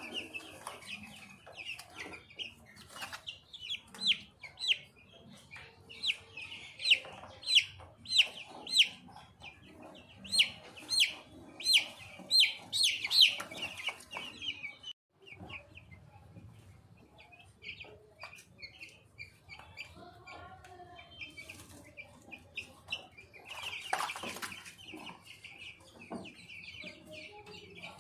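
14-day-old chicks peeping loudly in a quick run of short, high, falling cheeps. After a sudden break about halfway through the calls go fainter, and a loud run comes again a little past three-quarters of the way.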